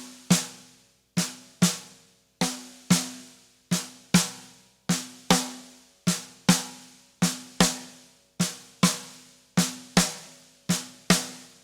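Snare drum struck with a stick in slow, even pairs, about ten of them. The first stroke of each pair rebounds off the head and the second stroke finishes the pair, each hit ringing out briefly. This is a rebound double-stroke exercise played with little force.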